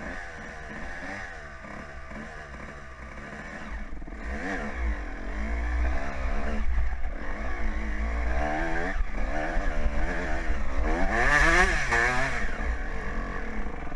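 Suzuki RM125 two-stroke dirt bike engine revving up and down over and over as it is ridden, getting louder about four seconds in, with a low wind rumble on the helmet-camera microphone.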